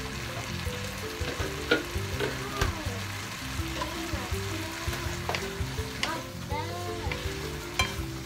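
Stir-fried noodles sizzling in a non-stick wok. In the second half a wooden spatula and a plastic turner scrape and knock against the pan as the noodles are tossed, with a few sharp clacks.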